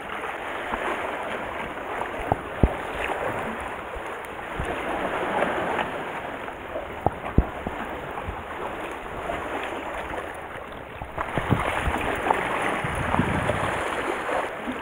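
Steady wash of the sea lapping among concrete breakwater blocks, with wind on the microphone. A few sharp clicks stand out, one near 2.5 seconds in and a couple around 7 seconds and 11.5 seconds.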